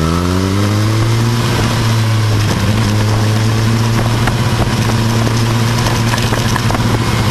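Motorcycle engine running: its pitch climbs over the first second and a half, then holds at a steady note, with some road and wind noise.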